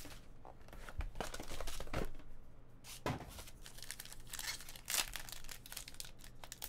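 Foil wrapper of a trading-card pack crinkling and tearing as it is pulled open by hand, with several short sharp crackles.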